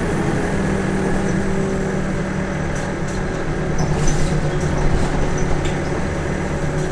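The Detroit Diesel Series 50 four-cylinder diesel of a 2002 NABI 416 transit bus running at a steady pitch, heard on board, with a handful of light clicks and rattles from about three to six seconds in.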